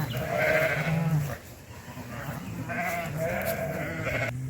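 Ewes and lambs bleating, several calls overlapping in two long stretches: the first dies away about a second and a half in, and the second starts shortly before three seconds.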